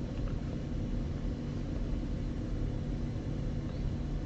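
Steady low room hum and rumble, with a few faint steady tones and no distinct events.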